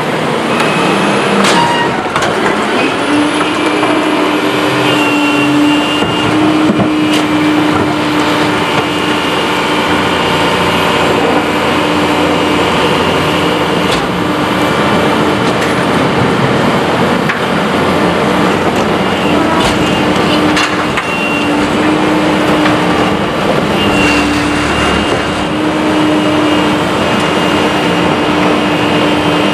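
Pak-Mor rear-loader garbage truck running at the curb with its hydraulics working, a steady whine over the engine drone, and a few sharp knocks as carts are tipped at the rear hopper.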